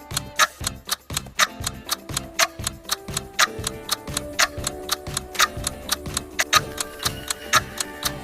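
Clock-ticking countdown-timer sound effect, a louder tick about once a second with fainter ticks between, over soft background music.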